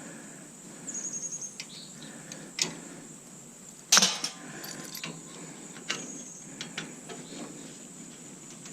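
Metal clicks and clinks from hand tools and parts of a stainless-steel Bunn-O-Matic coffee maker being taken apart. A quick run of small ticks comes about a second in, then scattered clicks, and one loud metal clank with a short ring about four seconds in.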